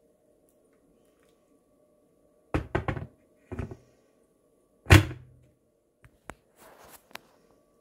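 A series of knocks and thumps in a small room: a quick cluster of sharp knocks about two and a half seconds in, another knock a moment later, and the loudest single thump about five seconds in, followed by a few light clicks.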